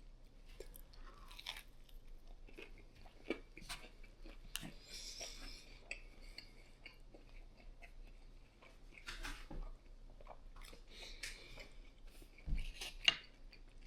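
Someone chewing a mouthful of chicken sandwich close to the microphone, with small wet clicks and mouth noises and one sharper click near the end.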